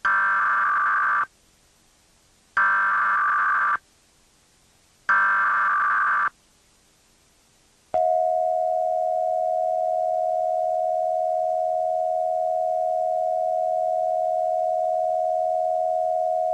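Emergency Alert System test signal, pitched lower than normal: three buzzy data bursts of the EAS header, each a little over a second long with short silences between, then about eight seconds in the steady two-tone EAS attention signal starts and holds.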